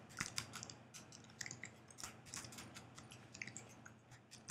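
Computer keyboard keys tapped in faint, irregular clicks over a low steady hum.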